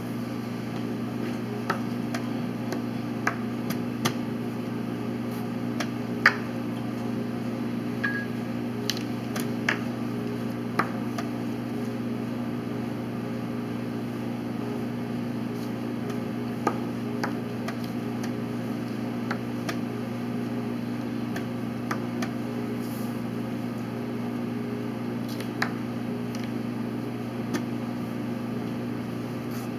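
Steady low background hum, with a dozen or so scattered sharp clicks of chess pieces being set down on the board and taps on the chess clock; the loudest click comes about six seconds in.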